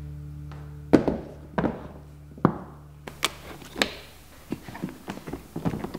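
Hard plastic Condition 1 weathertight case set down on a wooden workbench with a thunk about a second in, then its latches snapped open and the lid handled: a run of sharp clicks and knocks.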